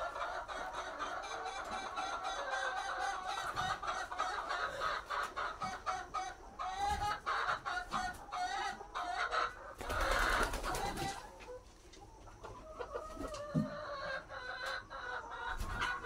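A flock of brown laying hens clucking and calling over one another without a break. About ten seconds in there is a brief louder rustling burst, and the flock quietens for a moment just after it.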